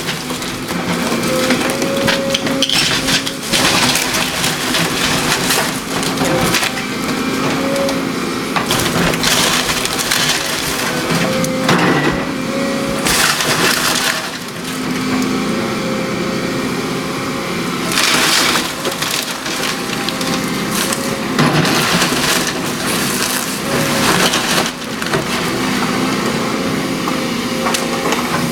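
A house being torn down: wood splintering and crushing in repeated crashes, over the steady drone of a heavy machine's engine.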